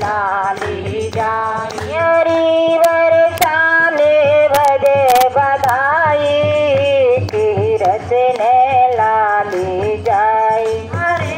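Devotional singing by a woman, with long held notes that glide between pitches, over a music backing. A few sharp clicks come in the middle.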